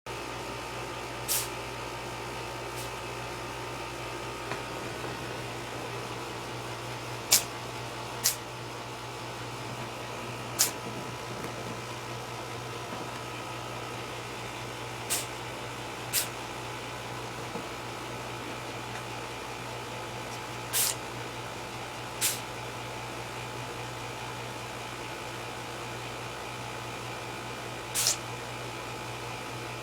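A cat sneezing again and again: about nine short, sharp sneezes at irregular intervals a few seconds apart, over a steady background hum.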